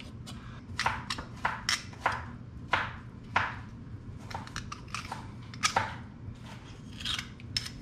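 A quahog (hard clam) being shucked with a thin-bladed clam knife: a string of irregular sharp clicks and scrapes as the steel blade works against and into the shell.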